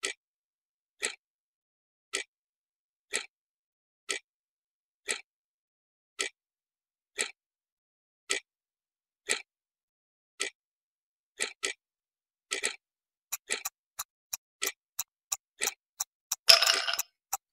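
Countdown clock-tick sound effect, one sharp tick a second marking the answer time running out. The ticks speed up to several a second over the last few seconds and end in a short harsh buzz as the time runs out.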